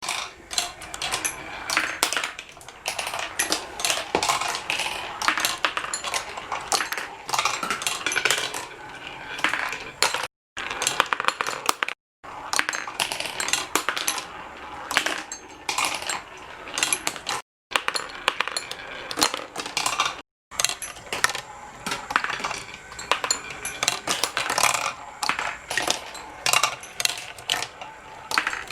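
Marbles rolling and clicking through a small marble run, a dense, uneven clatter of quick clicks and rattles. The sound cuts out abruptly to silence four times for a moment.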